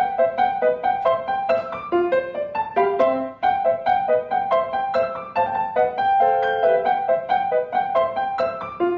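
Solo piano playing a quick, even run of notes, about four a second.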